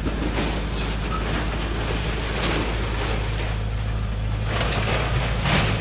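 Case CX160C excavator's diesel engine running steadily, with several short noisy bursts as the bucket and thumb tear into brush and wooden debris, the loudest near the end.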